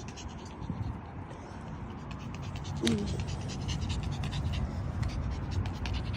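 Puppies moving about, with many small scratching clicks and panting that grows louder toward the end. A brief vocal sound comes about three seconds in.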